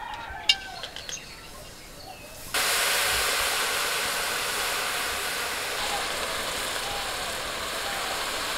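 Liquid sugarcane jaggery being poured into a hot dry wok, starting to sizzle and hiss suddenly about two and a half seconds in and keeping up a steady hiss.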